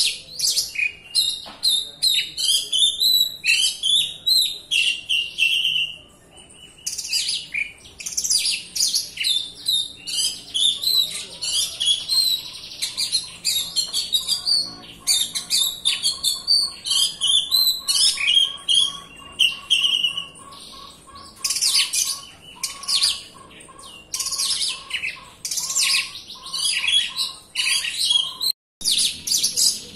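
Oriental magpie-robin (kacer) singing a dense, nearly continuous song of quick varied whistles and chirps, with a short lull about six seconds in.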